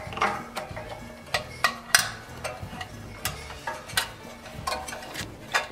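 Irregular light clicks and knocks of small metal and plastic engine parts being handled, as a new insulator block and gasket are slid onto the carburetor mounting studs of a small generator engine.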